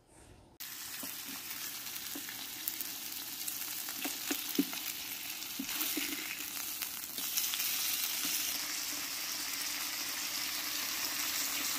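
Beef short ribs sizzling on a hot nonstick electric griddle, starting about half a second in, with a few small clicks along the way.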